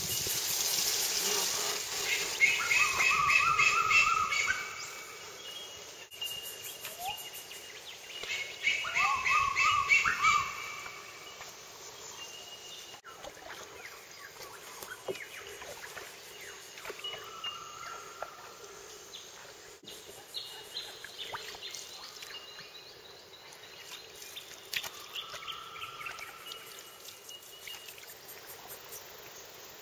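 Wild birds singing: a loud phrase of quick stepped notes comes twice, about two seconds and eight seconds in, then quieter calls follow, and a run of notes falls steadily in pitch around two-thirds of the way through.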